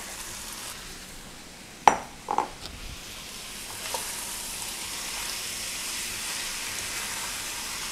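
Raw minced beef sizzling as it starts to fry in hot olive oil in a wok, stirred with a spatula; the sizzle slowly grows. A sharp knock about two seconds in, and a lighter one just after.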